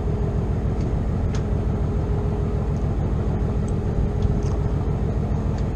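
Boat motor running steadily: a low rumble with a faint steady hum through it.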